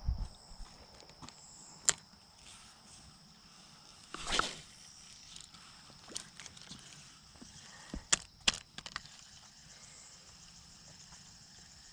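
Outdoor handling noise from an angler holding a fishing rod and reel: a low thump at the start, a sharp click about two seconds in, a short rustling swish around four seconds, and two sharp clicks a little after eight seconds. Under it runs a steady high-pitched insect drone.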